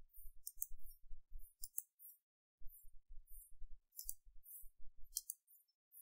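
Computer mouse buttons clicking: a series of short, sharp clicks at irregular spacing, some in quick pairs, as line segments are picked one by one for trimming. A faint low rumble lies underneath.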